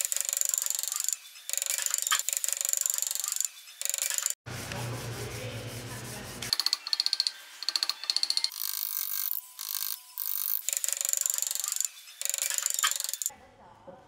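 Tools rubbing and rasping on wood in a run of short clips that start and stop abruptly. About halfway through comes a stretch with a low motor hum under it.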